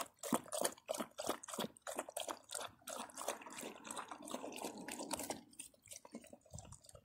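St. Bernard puppy lapping water from a collapsible bowl, about three quick wet laps a second, growing fainter about five seconds in.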